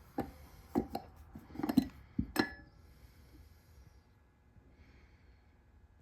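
Small brass valve parts of a D22 air brake valve being handled on a workbench: a quick run of clinks and knocks, the last about two and a half seconds in ringing briefly like struck metal.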